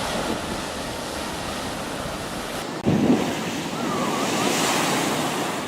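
Ocean waves breaking and surf rushing, with wind noise on the microphone. Just under three seconds in, the sound cuts abruptly to a louder, brighter wash of surf.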